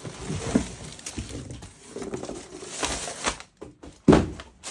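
Plastic toy pieces and packaging being handled: irregular clicks, taps and rustling, with one louder knock about four seconds in.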